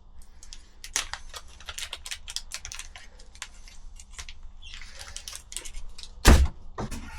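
Small screws and metal adapter parts being handled, a run of light clicks and clinks with some rustling, then one louder knock about six seconds in.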